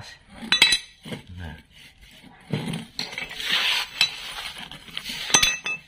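Steel suspension parts clinking and scraping as a steering knuckle with its spindle is fitted onto a welded front swing arm. There are two sharp ringing clinks, one about half a second in and one near the end, with metal rubbing on metal between them.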